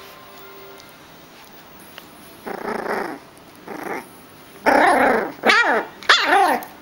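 Small poodle puppy growling as it mouths and tugs at a striped cloth. Two short growls are followed by three louder, higher-pitched growling yaps in quick succession over the last two seconds.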